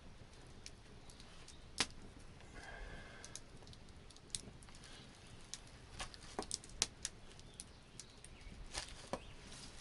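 Scattered sharp clicks and light ticks at irregular intervals, loudest about 2 seconds in and near 7 seconds, over a faint steady background.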